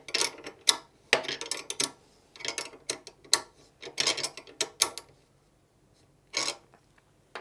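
13mm spanner being worked on a steel post clip's bolt to tighten it: repeated bursts of metal clicking, about one burst a second, stopping about five seconds in, with one last burst later.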